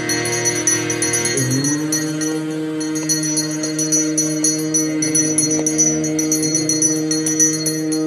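Temple aarti bells ringing rapidly and continuously over a steady held drone tone, which slides up in pitch about a second and a half in.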